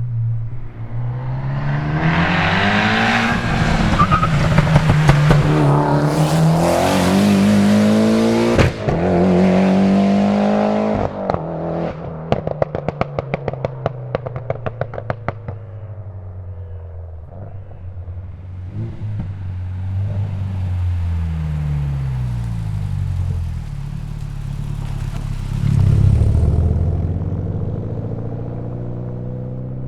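Tuned Mitsubishi Lancer Evolution X's turbocharged 2.0-litre four-cylinder accelerating hard, engine pitch rising, with a sharp break about eight and a half seconds in. From about eleven seconds a rapid string of exhaust pops and crackles on lift-off, then the engine runs at lower revs with falling pitch and a brief surge near the end.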